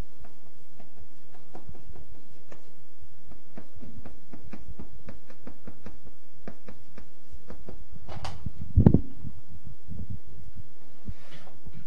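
Chalk tapping and scratching on a blackboard as words are written, many quick small clicks, then a heavier low thump about nine seconds in.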